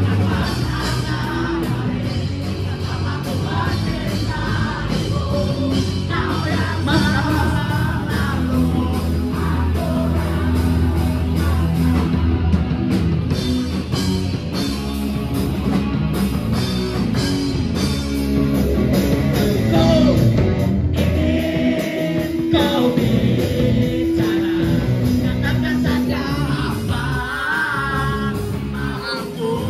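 Rock song with a singing voice over guitar, bass and a steady beat.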